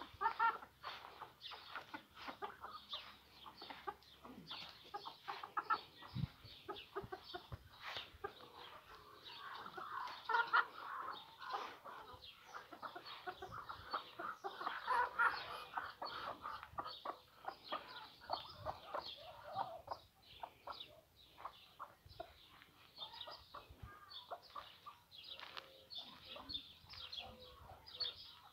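Domestic chickens clucking: a continuous, irregular run of short clucks from the flock, with louder stretches about ten and fifteen seconds in.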